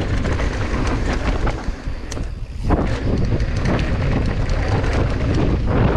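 Wind buffeting the microphone over the rumble of a mountain bike's tyres on a dry dirt trail at speed, with scattered clicks and rattles from the bike. The noise eases briefly a little before halfway, then picks up again.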